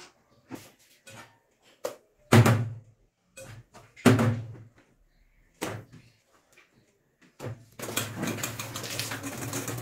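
A spatula scraping and knocking cream into a stainless steel bowl: scattered light clicks and two loud knocks about two and four seconds in. Near the end a wire whisk starts beating the cream in the steel bowl, a fast continuous clatter.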